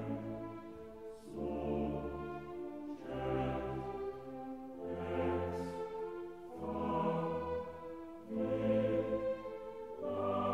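Slow orchestral-style background music with sustained chords that change every second or two over a steady bass line.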